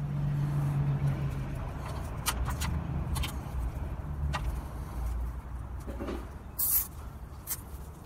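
Low rumble of a vehicle, with scattered sharp clicks and rattles of plastic wiring connectors and zip ties being handled; the loudest snap comes about two-thirds of the way through.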